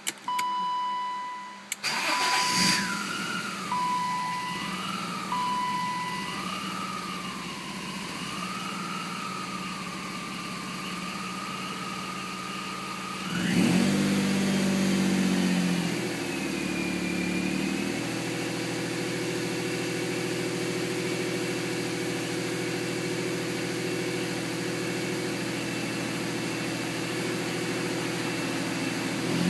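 BMW M50 stroker straight-six running at a rough idle. A few short high beeps sound near the start. About halfway through, the engine note jumps sharply and wavers, then settles into a steady, rough idle.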